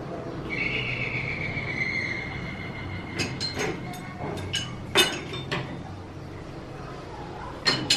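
Brass tap being turned on its wall fitting with a pipe wrench: a high squeal lasting about three seconds, then several sharp metallic clinks and knocks of the tools against the tap, the loudest about five seconds in.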